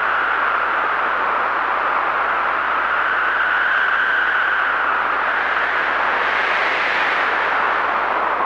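Strong, steady wind effect: a continuous rushing howl whose pitch drifts slowly up and down, with a swell near the middle and another towards the end.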